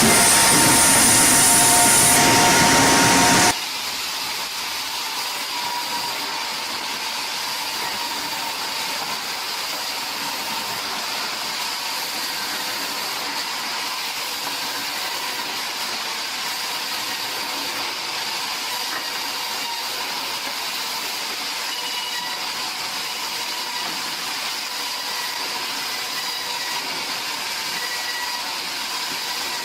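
Sawmill machinery running: loud, dense machine noise that cuts off abruptly about three and a half seconds in, followed by a steady, quieter high hiss with a faint whine.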